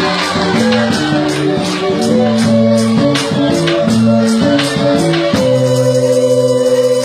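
A children's school wind band playing a melody over a steady percussion beat, closing on a long held chord near the end.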